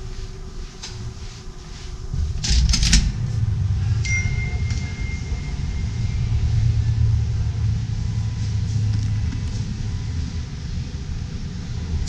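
Low, steady rumbling handling and wind noise on a handheld action camera being carried along at walking pace, with a few sharp knocks about two and a half seconds in and a brief thin beep-like tone a little later.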